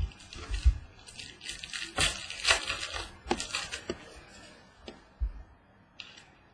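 Trading cards being handled: rustling and sliding with light clicks, densest about two to three and a half seconds in.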